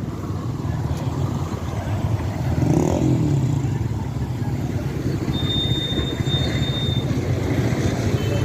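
Busy street traffic: vehicle and motorbike engines running and passing, with a thin high steady tone for about a second and a half in the middle.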